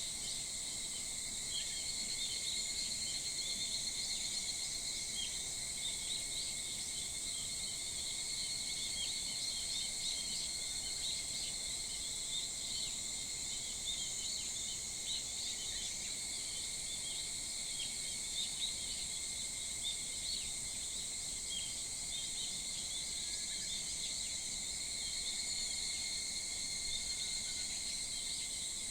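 A steady, dense chorus of many insects trilling in several high pitched bands, with short bird chirps scattered through it.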